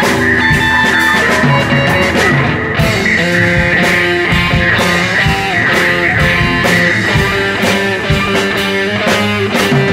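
Garage rock band playing an improvised piece, led by guitar with held notes over steady hits.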